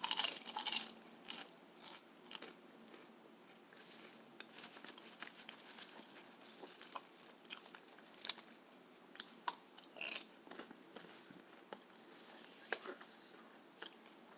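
A person biting and chewing a crunchy snack: a quick run of crunches in the first second, then single sharp crunches every second or two.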